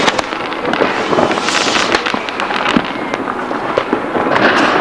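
New Year's Eve fireworks: many rockets and firecrackers going off at once, a continuous dense crackle of overlapping bangs and pops, with a brief hiss about a second and a half in.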